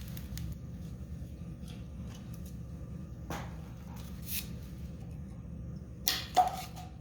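Handling noises from working on a small generator: light clicks and scrapes, then two sharp metallic clanks about six seconds in, the second ringing briefly.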